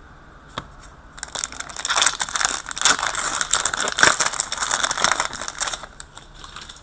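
Foil wrapper of a trading-card pack crinkling and tearing as it is opened by hand, from about a second in until nearly the end, with a single light tap just before.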